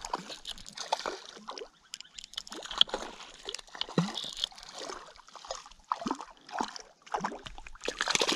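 Irregular splashing and sloshing in shallow water as a freshly caught tiger trout is handled and released, mixed with a jacket sleeve rubbing over the microphone. The splashing gets louder near the end.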